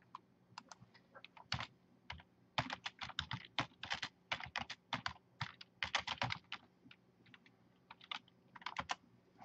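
Typing on a computer keyboard: quick key clicks, a few at first, then a fast dense run in the middle, thinning out again toward the end.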